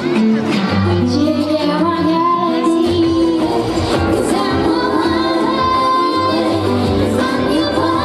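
Live pop song: a female vocalist singing into a handheld microphone over instrumental accompaniment, with long held notes around the middle.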